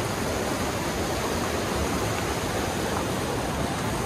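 Fast-flowing mountain stream rushing steadily.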